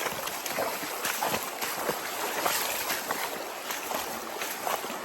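Legs wading through a river, water splashing and sloshing with each stride over the steady rush of the current.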